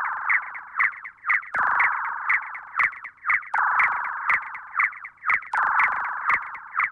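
Synthesized sci-fi sound effect: a buzzing electronic tone broken by quick, irregular chirps, several a second, fading out near the end.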